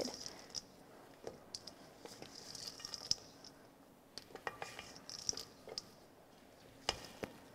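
Spatula folding blueberries through a thick muffin batter in a stainless steel bowl: faint squishing with scattered light clicks and scrapes against the bowl.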